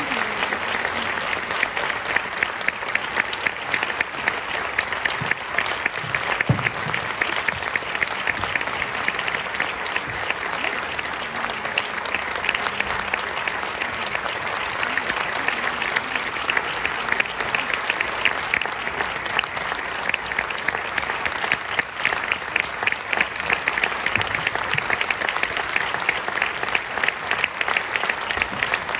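Audience applauding: dense, steady clapping that continues without a break.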